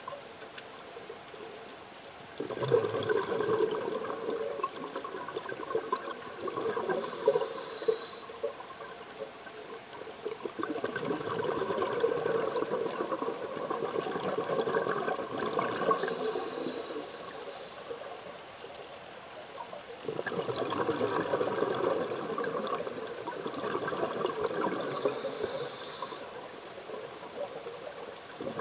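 Scuba diver breathing through a regulator underwater in slow, even cycles. Each breath is a short high hiss of inhalation followed by several seconds of bubbling exhalation, three times over.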